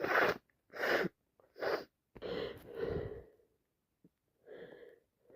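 A person's allergy sneezing fit: three short, loud sneezes in quick succession, then longer wheezy, gasping breaths and a softer burst near the end.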